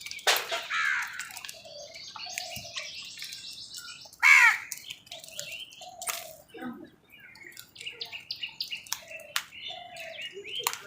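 Crows cawing, with one loud harsh caw about four seconds in and another near the start, amid a busy chatter of higher chirping bird calls.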